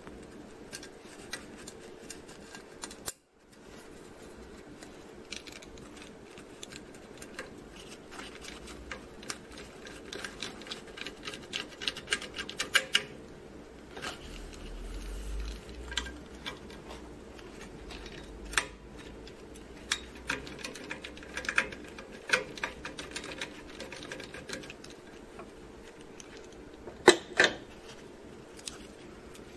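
Hands handling a paper towel and thermistor leads over a printer's fuser roller: irregular small clicks, taps and rustles, with a few louder clicks, over a faint steady hum.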